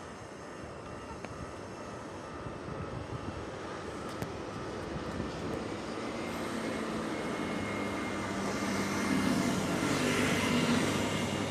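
A train approaching, its running noise and steady motor hum growing steadily louder and swelling over the last few seconds.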